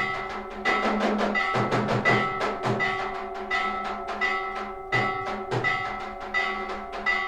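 Temple bells rung for aarti, struck in a steady rhythm of about three strikes every two seconds, each strike leaving a sustained metallic ring, with drum beats underneath.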